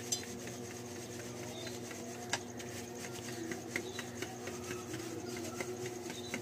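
Maize flour being sifted through a plastic sieve moved over a brass platter: a steady rubbing, rasping sound with many small irregular ticks and a couple of sharper clicks.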